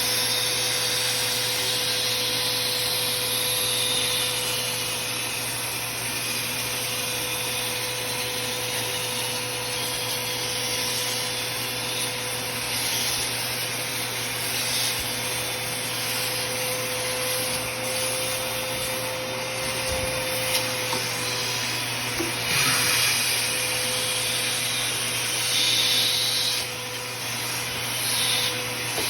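Vacuum cleaner running steadily as it sucks up sawdust, a constant motor hum under a rushing of air that swells and dips now and then.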